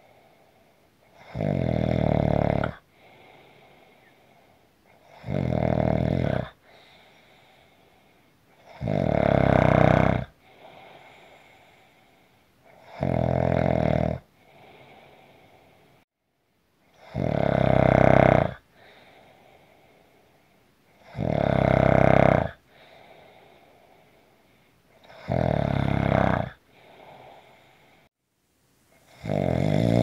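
Heavy snoring in a steady rhythm: a loud, rasping snore about every four seconds, eight in all, each followed by a quieter, longer breath.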